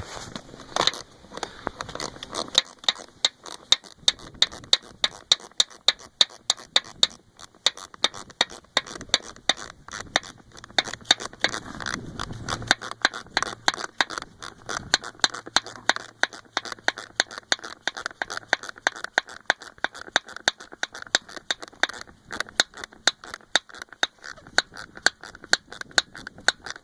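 Ratchet wrench clicking: a long, steady run of sharp clicks, several a second, as it is worked back and forth on a bolt.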